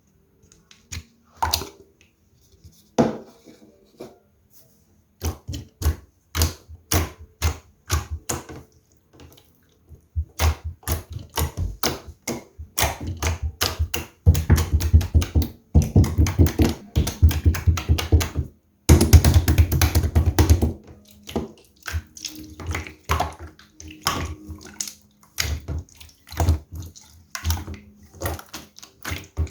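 Clear slime being squished and pressed by hand, making a run of wet clicks and pops: a few scattered ones at first, then dense, loud squelching through the middle, thinning out again toward the end.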